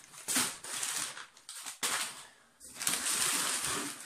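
Brown kraft packing paper crinkling and rustling as it is pulled out of a cardboard box, in three bursts with a short lull a little past halfway.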